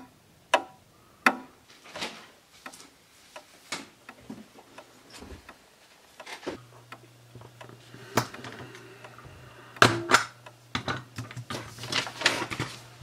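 Irregular sharp clicks and knocks of objects being handled on a desk, with a low steady hum coming in about six and a half seconds in. Near the end there is a quick flurry of paper being handled.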